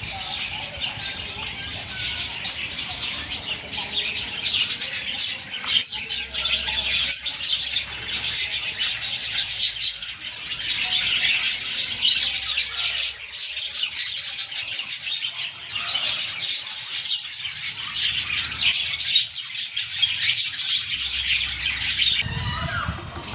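Many small birds chirping and tweeting together in a dense, continuous chatter.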